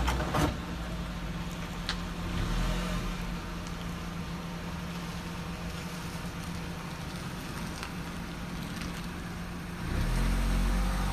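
A car's engine running at low speed as it creeps past, with a sharp knock about half a second in; the low engine sound grows stronger again near the end.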